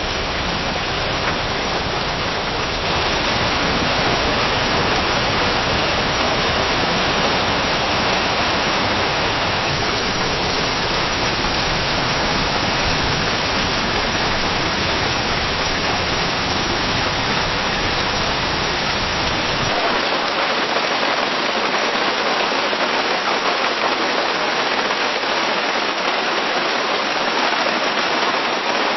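Steady rain falling in a forest, an even dense hiss of drops. The deep low rumble under it drops away about two-thirds of the way through, where one rain recording gives way to the next.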